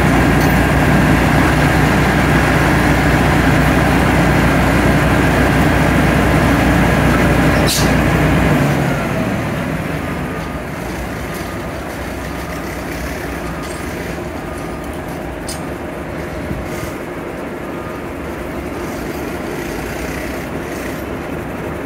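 Heavy diesel engine of a Hulcher Services rerailing crane running at high throttle with a steady whine, then throttling back to a lower idle about eight and a half seconds in as the whine slides down and fades. A single sharp click comes just before the engine drops.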